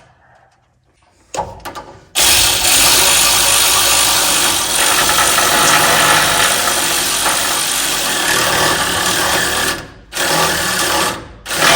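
Electric ratchet wrench running a nut down onto its lock washer: a few light clicks, then one long run of about eight seconds, then two short bursts near the end.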